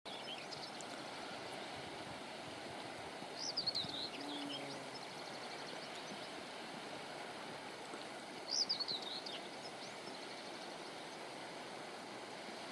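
Steady rush of water with a bird calling twice over it, each call a short run of high chirps falling in pitch, about three and a half seconds in and again about eight and a half seconds in.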